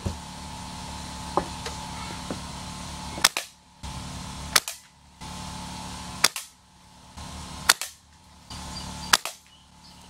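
Daisy Grizzly single-pump air rifle fired five times, sharp pops about one and a half seconds apart, as BBs hit an aluminium soda can.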